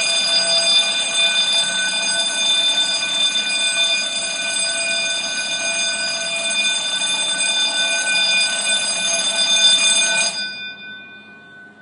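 An electric alarm bell ringing continuously for about ten seconds, then stopping; its tone rings on and fades away.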